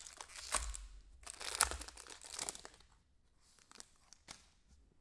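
Trading-card pack wrapper being torn open and crinkled, in dense rustling bursts for about the first three seconds, then a few light clicks and rustles as the cards are handled.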